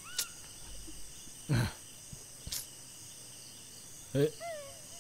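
Crickets chirping steadily in the background, with a few short separate sounds over it: two brief voice-like grunts about one and a half and four seconds in, and small arching chirps near the start and near the end.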